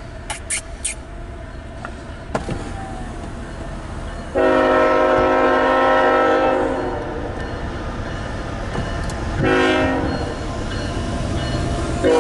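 CSX freight locomotive air horn on an approaching loaded coal train, heard from inside a car: one long blast about four seconds in, a short blast near ten seconds, and another beginning at the end, over a low rumble from the train. A few sharp clicks sound in the first second.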